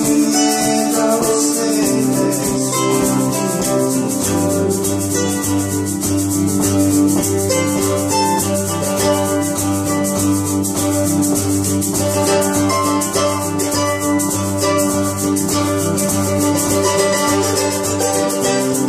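Live acoustic band playing an instrumental passage: acoustic guitars strummed in a steady, even rhythm, with held harmonica notes over a repeating low line.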